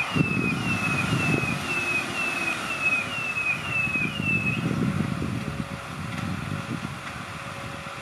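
Belarus MTZ 1221.2 tractor's diesel engine running with the throttle rising and falling as it turns with the plough lifted, easing off over the last couple of seconds. A run of short, high, downward chirps, about two a second, sounds through the first four and a half seconds.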